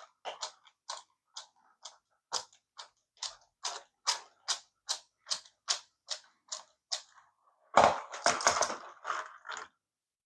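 Small sharp clicks at a steady pace, about two a second, while a screw is worked out of a plastic toy casing with a screwdriver. Then, near the end, a louder clatter of plastic parts being handled.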